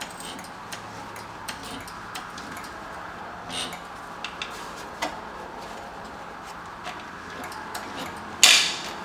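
Scattered light metallic clicks and taps from a car's rear suspension as a jack lifts the lower control arm and new lowering spring into place, then one louder metal clank with a short ringing tail near the end, over a steady shop hum.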